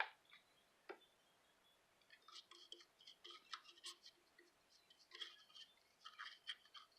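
Toothbrush scrubbing hand cleaner over a vintage sewing machine: quiet, short, brisk scratching strokes that start about two seconds in, after a couple of light clicks.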